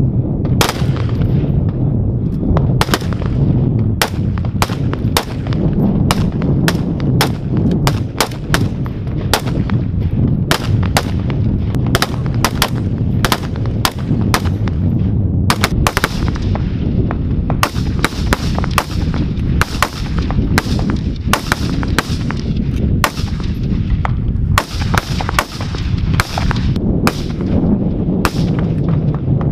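Rifle fire on a range: CZ BREN 2 assault rifles shooting sharp, irregular shots from several shooters at once, often several a second, with a steady low rumble underneath.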